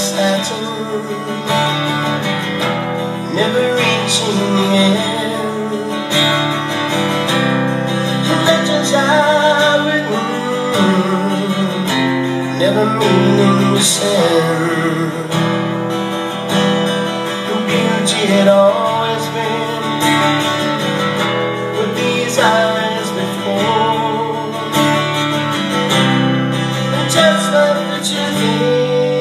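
A man singing to his own strummed acoustic guitar, a live solo performance.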